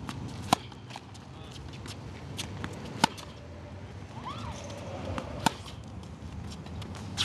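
Tennis balls struck by a racket during a feeding drill: three sharp hits about two and a half seconds apart, with fainter knocks of the ball between them.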